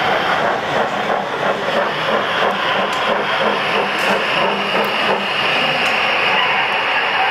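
Gauge 1 model steam locomotive running slowly, with a steady hiss of steam and a fluttering chuff.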